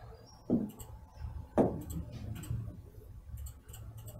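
Two dull knocks about a second apart, then a few faint clicks, over a low steady hum.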